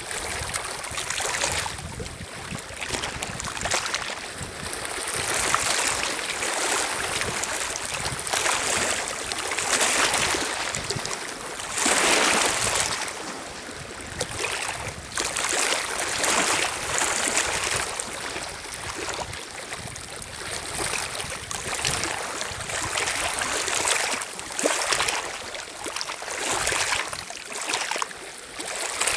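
Small lake waves lapping and washing over a pebble shore and around half-sunk cardboard boxes. The wash surges irregularly every couple of seconds, and the biggest surge comes about twelve seconds in.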